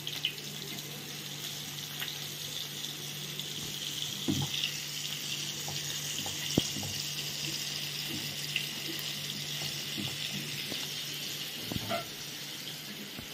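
Masala-coated fish shallow-frying in oil on an iron tawa, a steady sizzle, with a few soft clicks and taps as coated pieces are handled and laid in the pan.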